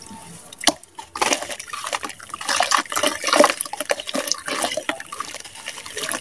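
Water-soaked sand block crumbled and squeezed between bare hands in a basin of water: gritty wet crunching and squelching, with water dripping and splashing, a sharp click under a second in and dense crackling from about a second in.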